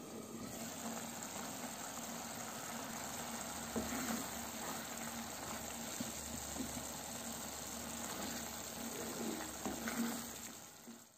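Thick tomato sauce simmering in a frying pan: a steady sizzle with scattered small pops, and a wooden spoon stirring through it in the last few seconds.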